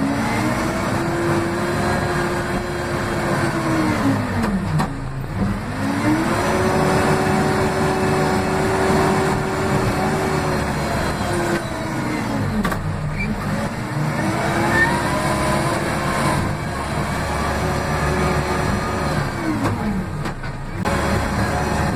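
Case 580M backhoe loader's diesel engine revving up three times, each time held at high speed for several seconds and then dropping back, heard from the cab beside the throttle pedal.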